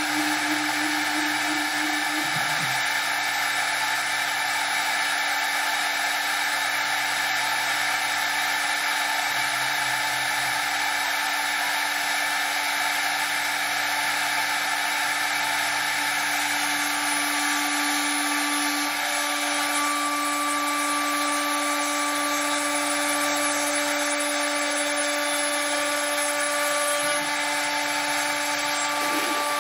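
CNC router spindle running at speed with a steady whine while the machine moves, with more steady tones joining about two-thirds of the way in. By the end the end mill is cutting a groove into a pine board.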